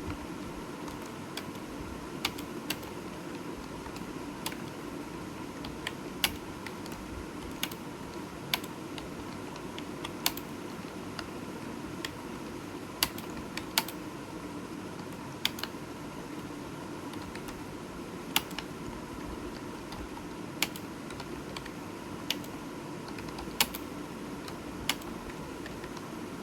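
Computer keyboard keystrokes: single sharp key clicks at an irregular pace of roughly one a second, over a steady background hiss and hum.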